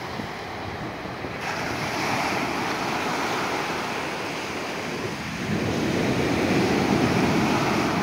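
Sea surf breaking and washing up a sandy beach, swelling louder about a second and a half in and again in the last few seconds, with wind buffeting the microphone.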